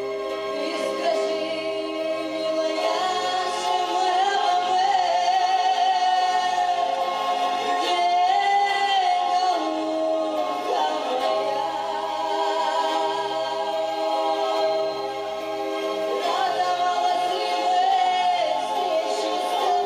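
Two women singing a Romani song in Russian, holding long notes with vibrato over a soft low accompaniment.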